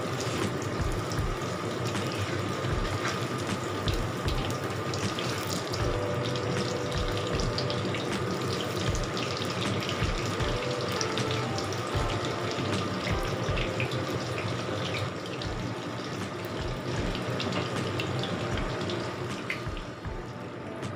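Vegetable fritters deep-frying in hot oil in a wok: a steady, dense sizzle full of small crackles.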